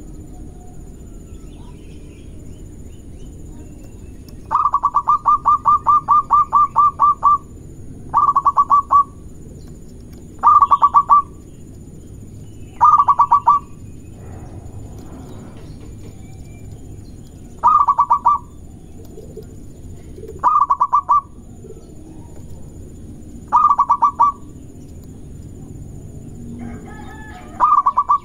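Zebra dove (perkutut) calling in fast, stuttering phrases of short pulsed notes. A long run of about three seconds comes first, then shorter bursts every two to three seconds, over a steady low background noise.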